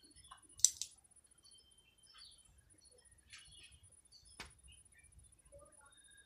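Young chickens pecking scattered grain off hard ground: sparse sharp beak taps, the loudest a double tap about half a second in and a single tap about four seconds in, with faint short cheeps between.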